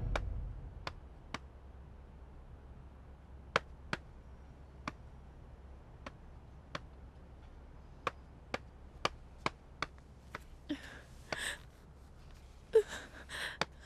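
Sparse sharp clicks at irregular intervals over a low steady hum, and a woman's shaky, breathy gasps twice near the end.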